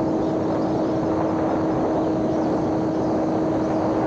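Electric motor and propeller of a homemade RC airplane running at one steady pitch, a constant hum over a loud even rush of wind noise.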